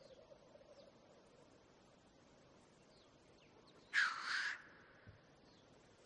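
Black grouse cock giving one loud hissing 'sneeze' display call about four seconds in, a short rasping rush of breath in two quick pulses. A faint bubbling rookoo of black grouse runs low underneath in the first second, with a few faint chirps of small birds.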